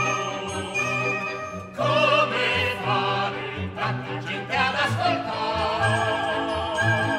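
Opera singers singing with wide vibrato over an orchestral accompaniment with a moving bass line.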